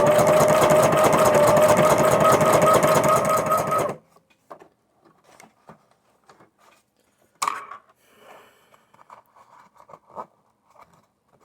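Sewing machine running at a steady speed, stitching heavy fabric, then stopping abruptly about four seconds in. After it stops come faint scattered clicks and rustles, with one sharp click midway through.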